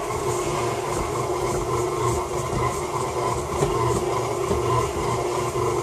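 KitchenAid tilt-head stand mixer running steadily as it kneads a sticky pretzel dough in its steel bowl, its motor hum carrying a rhythmic low churning from the dough turning.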